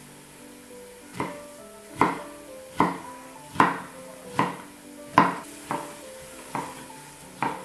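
About nine sharp kitchen knocks at a steady pace, a little over one a second, starting about a second in, over soft background music.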